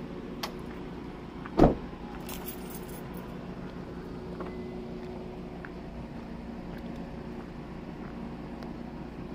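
A car's engine and tyres heard from inside the cabin while driving on a dirt campground road: a steady low hum, with one loud thump about a second and a half in and a few light clicks and rattles.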